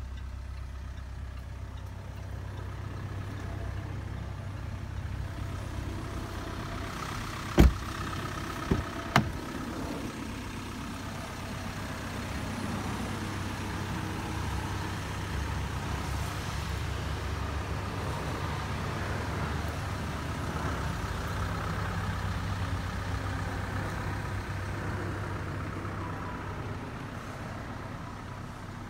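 Steady low hum inside the cabin of a Range Rover Evoque, with three sharp knocks about eight to nine seconds in, the first the loudest. A broad hiss swells from about twelve seconds in and eases near the end.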